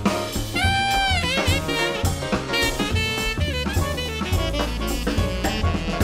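Jazz background music: a melody line over drums and bass.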